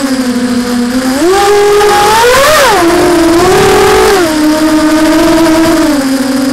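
A racing quadcopter's EMAX RS2205 2300 kV brushless motors spinning DAL 6045 propellers on a 4S battery, heard from the onboard camera: a steady whine that climbs in pitch about a second in as the throttle goes up. It peaks with a quick rise and fall and a rush of air at about two and a half seconds, then drops back to a lower pitch at about four seconds.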